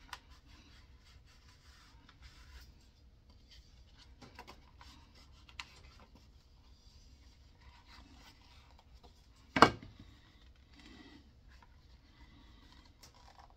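A wooden stick rubbing and scraping inside a thick leather holster as it is worked in to stretch the holster open, with quiet scattered scrapes and small ticks. One sharp knock about two-thirds of the way through.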